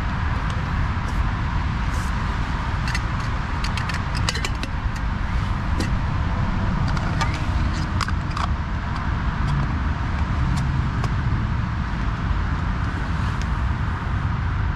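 Steady low rumble of road traffic circling the roundabout, with scattered light clicks and knocks of camping cookware being handled.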